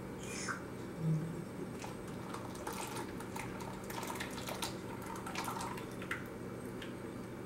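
Melted butter pouring in a thin stream from one bowl into beaten eggs in another, then dripping from the upturned bowl as a scatter of small drips and spatters from about two to six seconds in.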